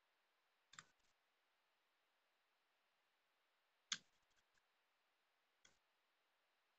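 Three small sharp clicks of tweezers and parts knocking against an angle grinder's metal gearbox housing as it is being reassembled: one about a second in, a louder one near four seconds followed by a few faint ticks, and a light one near the end.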